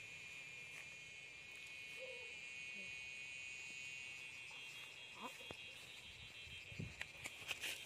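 A faint, steady chorus of insects such as crickets buzzing in the grass, with a few soft knocks near the end.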